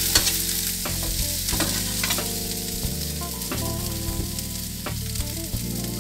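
Potato, carrot and broccoli strips sizzling as they stir-fry in a nonstick pan. A metal spoon stirring them scrapes and clicks against the pan every second or so.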